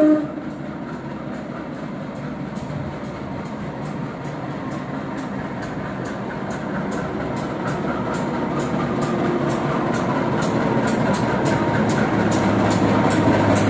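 Diesel locomotive hauling a passenger train, approaching through a station, its rumble growing steadily louder with a heavy low engine drone strongest near the end. A brief loud pitched blast comes at the very start.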